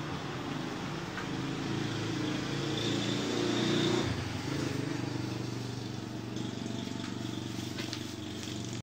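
A motor vehicle's engine running on a nearby road, growing louder to a peak about four seconds in and then easing off but still audible. A few faint clicks near the end.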